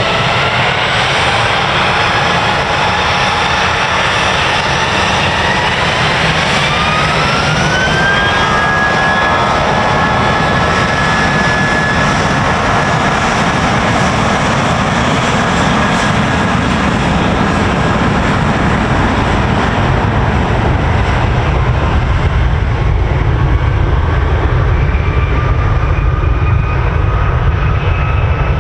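Jet airliner engines running, their whine rising in pitch a few seconds in as they spool up and then holding steady, over a constant low rumble that grows louder near the end.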